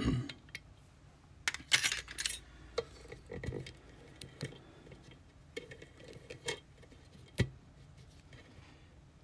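Irregular small metallic clicks and clinks as an EVVA Dual lock and metal tools are handled, with a denser clatter about two seconds in and single sharp clicks after that.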